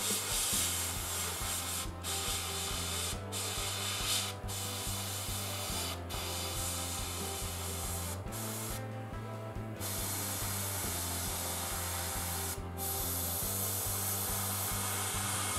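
Gravity-feed airbrush spraying paint in short passes: a steady hiss of air and paint that stops briefly each time the trigger is released, every second or two, with a longer pause about nine seconds in.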